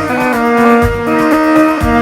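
Arabic dabke music played without vocals: an ornamented, wavering melody line held over a low drum beat about once a second.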